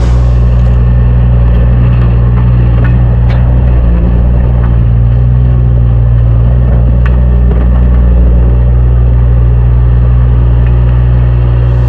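Heavy machinery running steadily: a loud, unchanging low drone with a few faint clicks over it.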